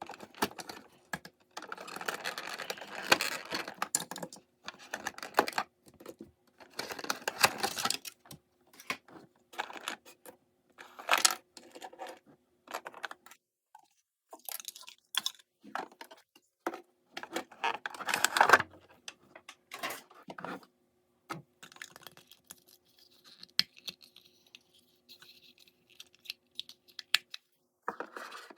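Hands unboxing and handling packaging and small items: irregular clicks and taps, with several bursts of rustling and tearing.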